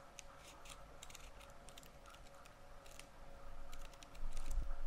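Pages of a thick paper instruction manual being flipped through: a scattered string of light ticks and rustles, with a low muffled rumble of handling near the end.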